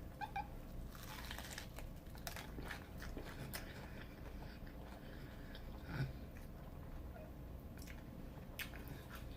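Close-miked biting and chewing of a crispy Hot Cheeto-breaded fried giant shrimp: irregular crisp crunches between quieter chewing, with one louder crunch about six seconds in.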